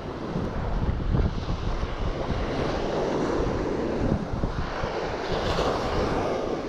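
Wind buffeting the microphone in uneven gusts over the wash of surf breaking on the beach.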